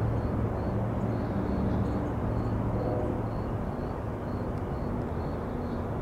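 Distant UTA FrontRunner MP36PH-3C diesel locomotive with its EMD 16-645 prime mover running under power, a steady low engine drone with a hum of held tones.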